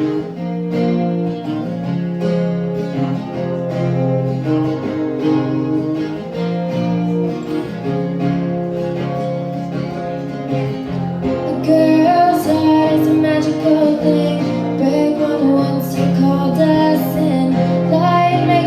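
Acoustic guitar playing the song's intro. A young girl's voice starts singing about twelve seconds in.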